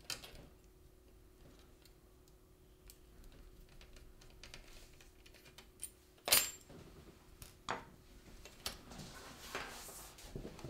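Light metallic clicks and taps of a small screwdriver and tiny screws while the two screws holding a laptop's SATA drive are undone, with one sharper click about six seconds in and another near eight seconds.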